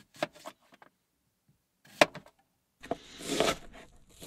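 Kitchen knife slicing a raw onion on a plastic chopping board. There are a few light knocks of the blade, then one sharp knock about two seconds in. Near the end come longer rasping strokes as the knife goes through the onion.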